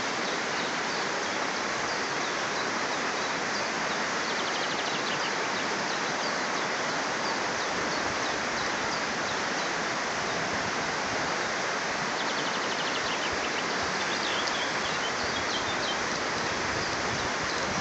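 Steady rushing of a flowing stream, with small birds chirping now and then over it, most often in the later part.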